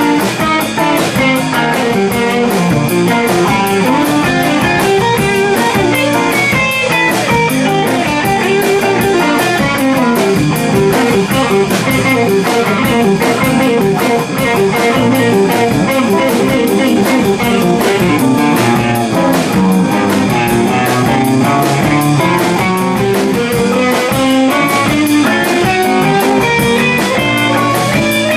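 Live blues-rock band playing: electric guitars over bass guitar and a drum kit, with steady drum and cymbal hits and a rising guitar slide near the end.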